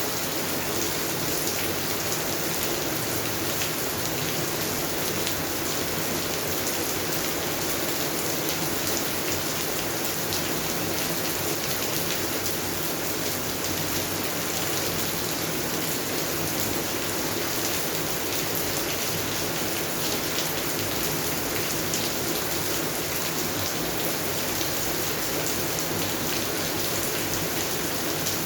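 Steady rain falling on garden plants, a continuous even hiss of drops with fine individual patters.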